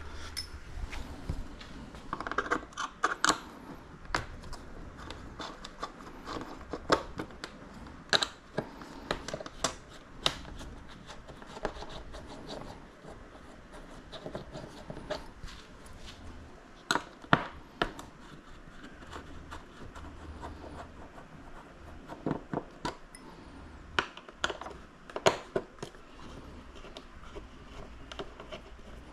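Irregular clicks, taps and scrapes of hand work on a foam RC jet model as its wings are taken off and their screws removed, over a faint low hum.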